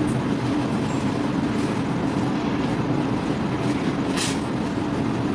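Steady mechanical hum and rumble, with a short sharp click about four seconds in.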